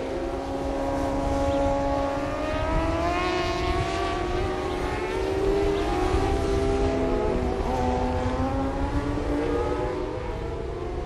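600cc supersport racing motorcycle engines at high revs, several pitches at once rising and falling as the bikes accelerate and shift, over a steady low rumble.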